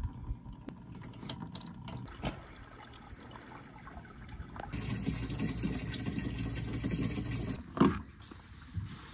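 Water running into a plastic water jug, with light clicks and handling at first, then a louder steady rush of flowing water about halfway through that stops suddenly. A single heavy thump follows just after it.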